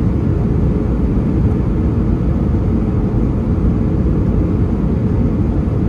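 Cabin noise of an Airbus A320 airliner descending to land: a steady rumble of the engines and rushing air, heard from a window seat over the wing.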